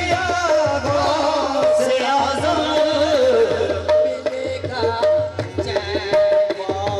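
Qawwali music: tabla drumming with a sung melody and held notes over it.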